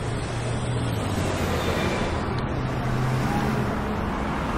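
City street traffic: a steady hum of passing cars and engines with continuous road noise.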